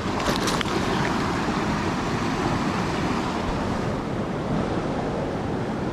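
Steady rush of a fast-flowing mountain river, with a few brief clicks about half a second in.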